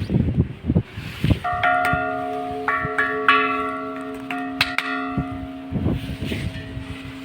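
Church bells struck one after another in a quick, uneven run, several bells of different pitch whose tones ring on and overlap as they slowly fade. A few short sharp knocks come just before the first bell.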